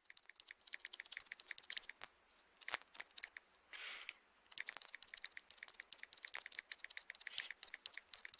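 Faint, rapid clicking of keystrokes on a computer keyboard, several a second, with a short pause and a brief scratchy noise about four seconds in.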